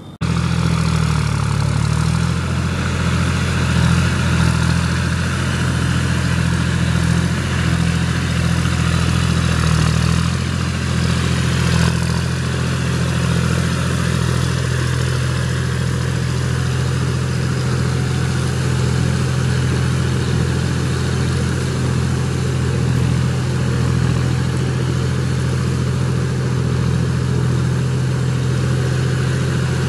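Tractor engine running steadily under load, at a very even level throughout.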